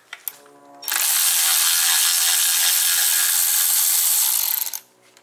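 Cordless electric ratchet running steadily for about four seconds, backing out an oil pan bolt on an engine block. It starts about a second in and stops abruptly near the end.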